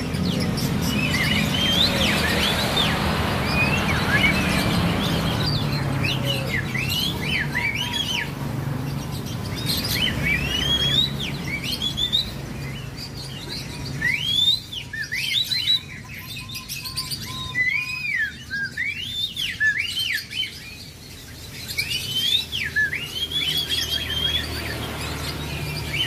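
Caged songbirds chirping and singing, with many short whistled notes rising and falling in quick runs, over a steady low hum.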